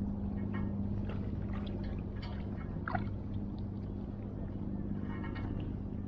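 A motor hums steadily and low, with faint scattered splashes and ticks of water over it.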